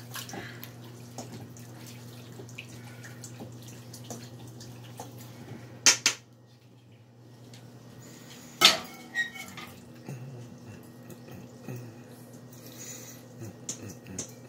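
A metal ladle and stainless steel pots clinking and scraping as sauce is ladled over rigatoni in a glass baking dish, with two sharp clanks about six and nine seconds in. A steady low hum runs underneath.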